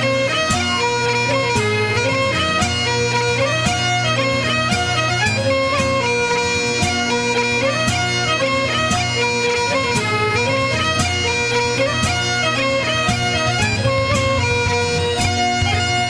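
Bagpipes playing a melody over steady low drones, an instrumental break in a recorded song.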